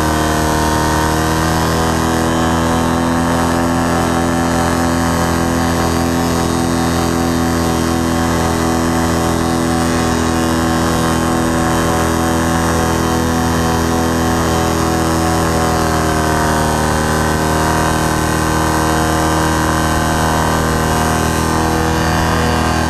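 Paramotor's engine and propeller running steadily in flight, with a slight shift in pitch about sixteen seconds in.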